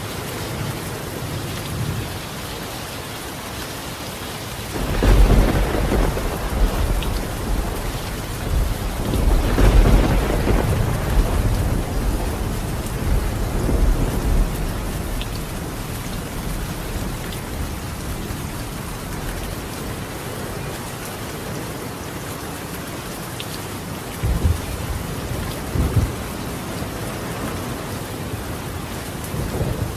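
Steady heavy rain on a tiled roof with rolling thunder: a loud rumble breaks about five seconds in, a second builds a few seconds later and both die away slowly, with two shorter low rumbles near the end.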